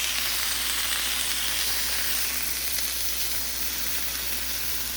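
Boneless chicken breasts frying, with a steady sizzle.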